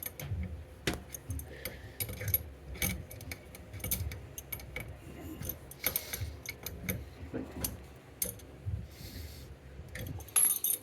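Scattered small clicks and metallic taps from toilet supply-line fittings being handled and threaded on by hand.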